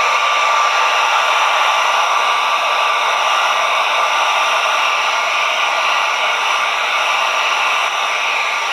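Electric heat gun running steadily, blowing hot air: an even rush of air with a thin, steady high whine over it.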